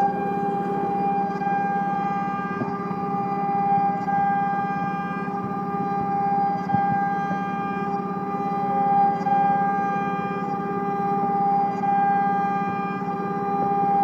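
CNC router spindle whining steadily at a constant high pitch as its bit carves a relief into wood, the level swelling and easing slightly every couple of seconds.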